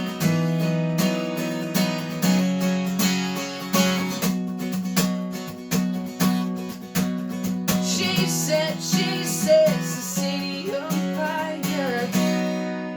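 Acoustic guitar strummed in a steady rhythm, with a voice singing a short melody about eight seconds in. It ends on a last chord that rings out and fades.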